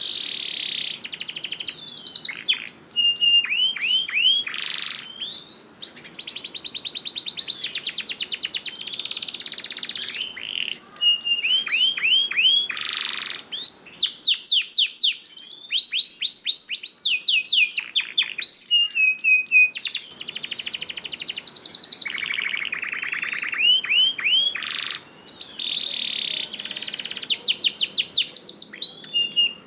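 Domestic canary singing a long, busy song: fast rattling trills alternating with runs of repeated sweeping whistled notes, with only a few brief pauses.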